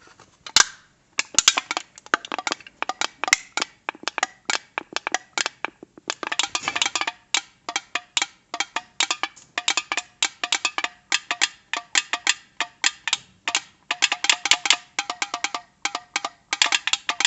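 Empty, dented soda can with a hole in its side, worked by hand to give a rapid run of sharp, slightly pitched clicks and pops, several a second, with short pauses between runs.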